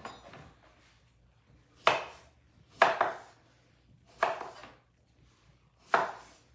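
Kitchen knife chopping through cucumbers: five separate sharp chops at uneven intervals, two of them in quick succession.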